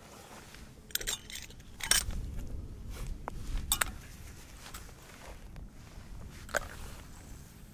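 Titanium pot lid lifted off a camping pot of water and handled: a few sharp metal clinks and taps, about one, two, four and six and a half seconds in, over a low wind rumble.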